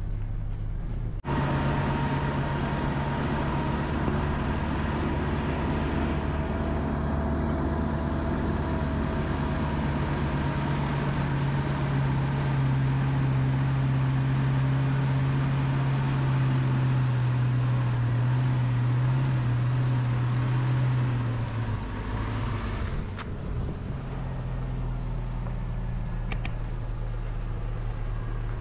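Motor vehicle engine running steadily; its note drops and eases about three-quarters of the way through.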